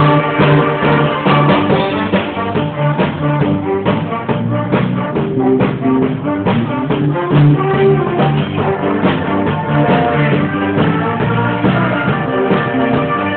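A school band playing live: held pitched notes over a steady drum beat.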